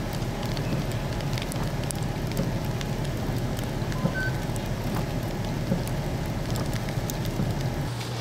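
Freezing rain falling steadily, a constant hiss broken by many small sharp ticks as drops strike the pavement and parked vehicles, over a low steady hum.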